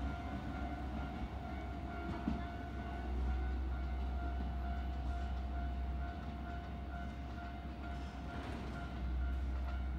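Electric commuter train pulling away from the platform and running off into the distance: a steady low rumble of wheels on rails with a faint steady whine over it.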